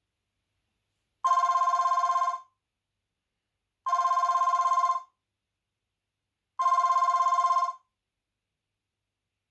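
A ringtone on the HTC Advantage X7500 phone, an old-style telephone ring: a fast trilling ring about a second long, sounding three times at even spacing.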